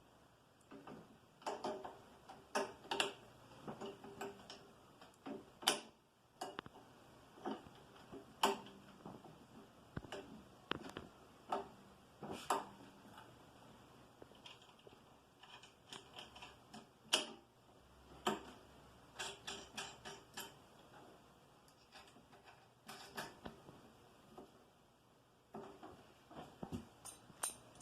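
Small metal clicks and taps at irregular intervals as a drill press's coiled return spring and its housing are worked into place by hand.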